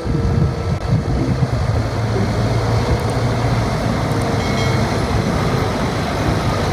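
Water spraying steadily as muddy toys are washed: an even rushing hiss with a low hum under it.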